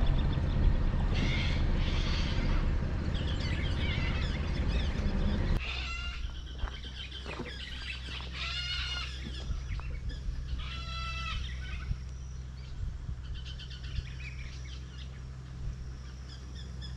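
A vehicle engine running with a low steady hum, which stops abruptly about five and a half seconds in. After it, birds calling: three drawn-out harsh calls spaced a few seconds apart, with fainter chirps between.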